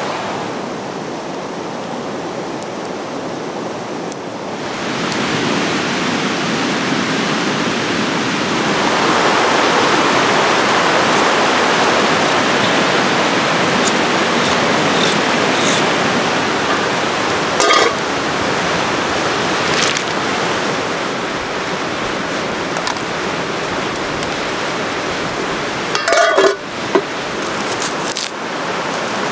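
Steady rushing of a fast mountain river, loud and even, with a few brief clicks and a short squeak near the end.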